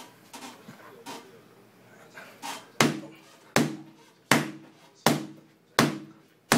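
The base of a wine bottle banged repeatedly against a thick book held flat on a wall: a few light knocks, then six hard thuds about three-quarters of a second apart. Each blow works the cork a little further out of the neck.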